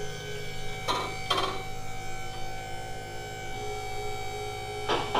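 Electric hydraulic pump motor of a two-post vehicle lift running steadily with a droning hum as it raises the bus.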